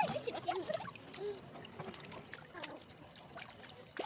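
Water sloshing and trickling in a plastic tub, with small splashes and a child's brief vocal sounds in the first second or so.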